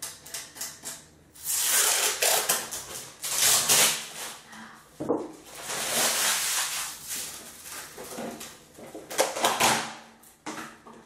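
Plastic being handled: a few clicks, then bursts of crinkling and rustling.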